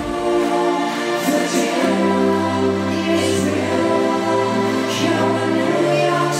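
Live synth-pop music: sustained synthesizer chords under a male singer, with choir-like backing vocals.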